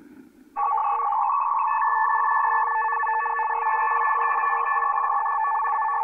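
Shortwave receiver audio: a steady chord of electronic tones, cut off above about 3 kHz like an AM radio channel, starting about half a second in and holding with small flickers.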